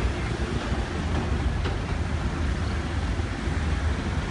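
A passenger minibus driving slowly across a parking lot, its engine running, under a steady low rumble of wind on the microphone.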